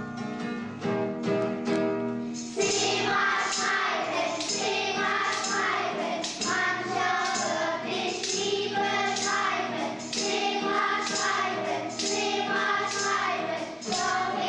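A group of schoolchildren singing a road-safety song together, with tambourines, small cymbals and shakers keeping a steady beat. The beat comes in about two and a half seconds in.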